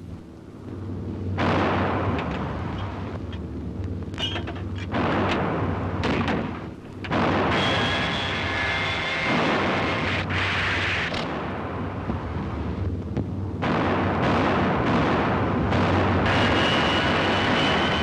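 Anti-aircraft guns firing in a barrage, loud blasts setting in again and again over a steady low hum of old film sound.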